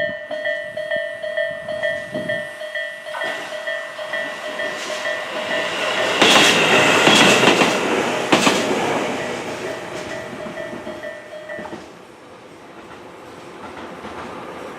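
Japanese level-crossing warning bell dinging over and over while a two-car Tobu Kameido Line train passes over the crossing. The train's noise swells to a peak midway with clacks of its wheels over the rail joints, then fades. The bell stops about twelve seconds in.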